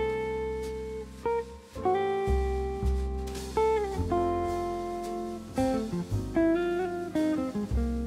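Background music: a guitar instrumental of held notes, some sliding in pitch, over a deep bass line.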